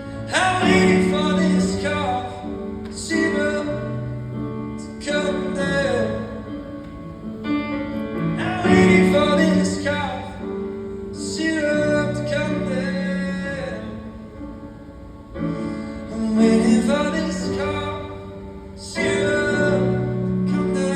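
A male voice singing a slow pop ballad in phrases of a few seconds each, over sustained piano chords.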